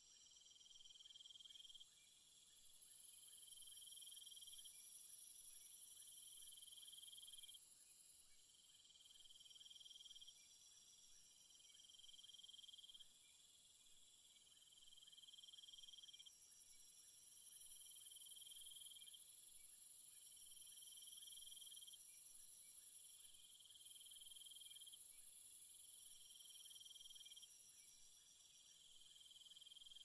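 Faint insect chorus: a high trill repeating in phrases of about a second and a half with short gaps, over a higher buzzing that swells and fades every few seconds.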